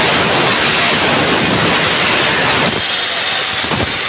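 Stanley miter saw cutting through an aluminium window-frame section, a loud steady cutting noise from the blade in the metal. About two-thirds of the way through the cut noise drops away and the blade runs on freely.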